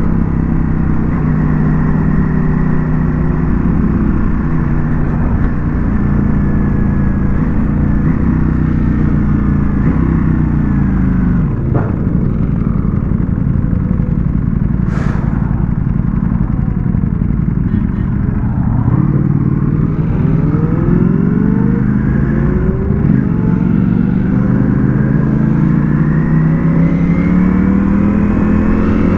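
Ducati Panigale V4 S's V4 engine under way, its note falling as the bike slows over the first ten seconds or so. It then climbs again in pitch in several rising pulls from about two-thirds of the way in as the bike accelerates, with wind rushing over the microphone.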